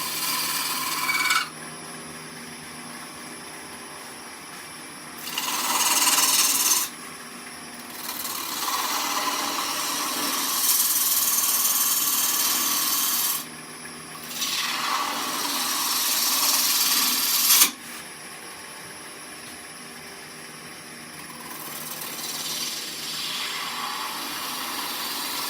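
Wood-turning gouge cutting green wood spinning on a Oneway 2436 lathe: about five cuts of one to five seconds each, a rushing shaving hiss, with the lathe's steady hum between them.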